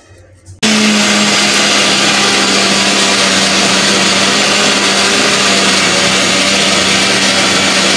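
Electric kitchen mixer grinder switched on about half a second in and running steadily at full speed, wet-grinding coconut, roasted red chillies, spices and a little water into a fine masala paste. A steady motor hum sits under the grinding noise.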